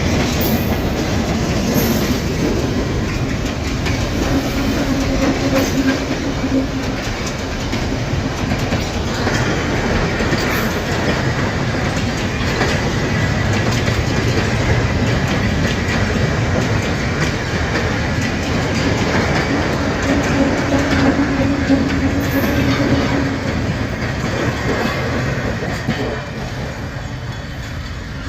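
Freight wagons of a long train rolling past, wheels clacking over rail joints, with faint squealing tones from the wheels at times. The noise drops off a couple of seconds before the end.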